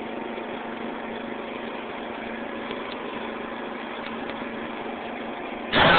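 Riding lawn mower engine running steadily at an even pitch while the mower is driven.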